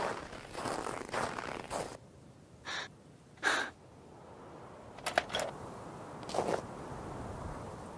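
Cartoon footsteps crunching in snow for the first couple of seconds, then a short breathy sound, and a few sharp clacks about five seconds in as the skis are dropped onto the snow.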